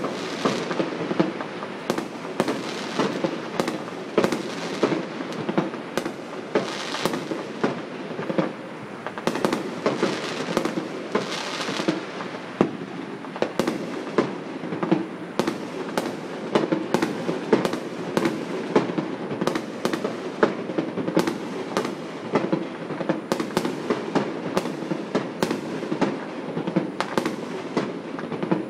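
Fireworks going off in a continuous barrage: sharp bangs and pops at irregular intervals, about one or two a second, over a steady background din.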